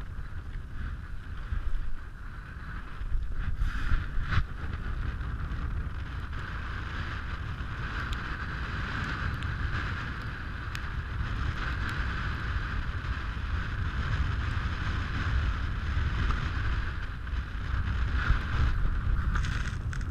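Wind buffeting an action camera's microphone: a steady low rumble with an even hiss over it, and a couple of brief knocks about four seconds in.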